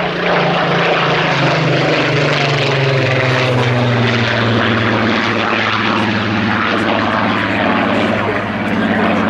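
Supermarine Spitfire PR XIX's Rolls-Royce Griffon V12 engine and propeller during a loud display pass. The engine note drops in pitch over the first few seconds as the aircraft goes by, then holds steady as it climbs away.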